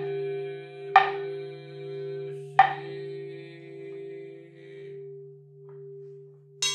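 Buddhist temple bowl bells: a deep bowl bell struck twice, about a second and a half apart, its low hum ringing on with a slow pulsing wobble as it fades. Right at the end a smaller, higher-pitched bell is struck once.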